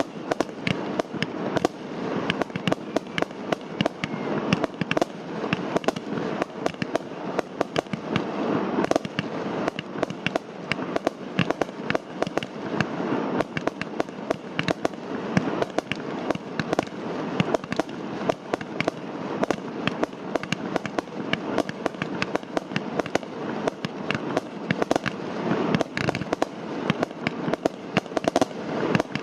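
Fireworks display: a dense, unbroken run of sharp cracks and crackling pops, many a second, with no pause.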